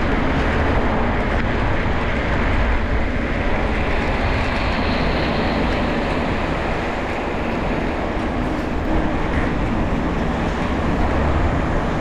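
Steady loud rushing noise of wind buffeting the microphone while cycling, with the hiss of moving air and road.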